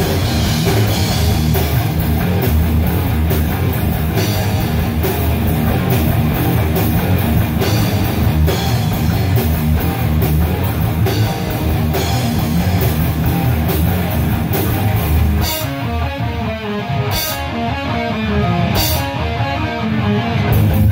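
Heavy metal band of electric guitars, electric bass and drum kit playing loudly together. About fifteen seconds in the full beat drops out, leaving ringing guitar chords and a few separate crash cymbal hits about every second and a half, with a last hit near the end, as the song winds down to its close.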